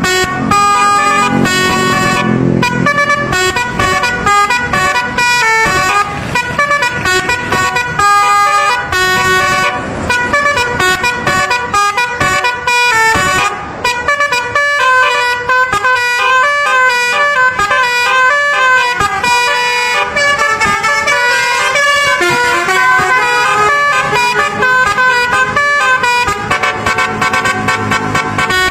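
Multi-tone musical air horns, telolet-style, playing a fast melody in quick stepped notes without a break.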